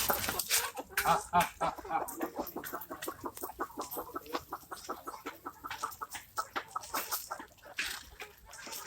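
A flock of free-range country chickens clucking, many short calls overlapping.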